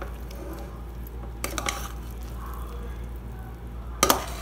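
Long metal spoon mixing cooked biriyani rice in an aluminium pressure cooker: soft squishing of the rice, with a clink of the spoon against the pot about a second and a half in and a louder one near the end.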